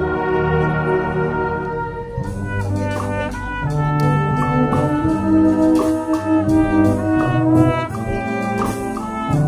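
Concert wind band of clarinets, saxophones and brass playing: a held chord, then about two seconds in it moves into a livelier passage of short brass notes with sharp percussion hits.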